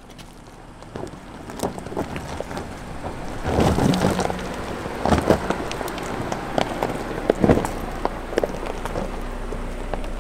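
Tyres of a 2023 Land Rover Defender rolling slowly over loose rocks and gravel, stones crunching and cracking under the tread, loudest around four, five and seven and a half seconds in.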